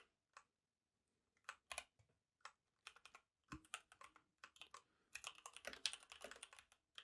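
Faint computer keyboard typing: a few scattered keystrokes, then a quick run of keys from about five seconds in.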